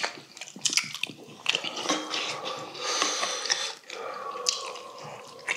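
Close-up eating sounds: chewing and smacking over braised bracken and rice, with chopsticks and spoons clicking against stainless-steel bowls.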